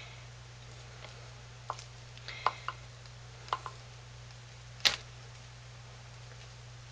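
A knife pressing and smoothing soft hot-process soap in a plastic-lined mold: a few scattered light clicks and taps, the sharpest one about five seconds in, over a steady low hum.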